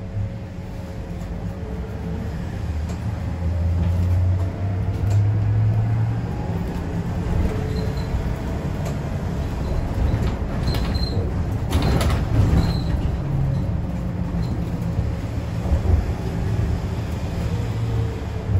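City bus pulling away from a stop and gathering speed, heard from inside near the front: its drive runs with a low rumble and a faint whine that rises in pitch as it speeds up, over road noise. There is a brief clatter about twelve seconds in.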